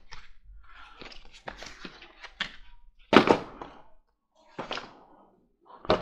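Paper booklets and cardboard being handled: a soft rustle, then a few short taps as booklets are set down on a cardboard box, the loudest about halfway through.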